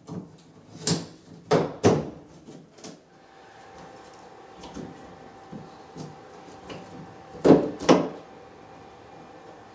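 12-volt LED downlight housings knocking and scraping as they are pushed up into holes cut in an OSB ceiling board. There are a few sharp knocks about a second in and two louder ones close together near the end.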